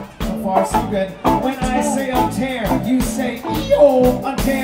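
Live band playing a song amplified through a PA: electric and acoustic guitar with a voice singing, over sharp percussive hits.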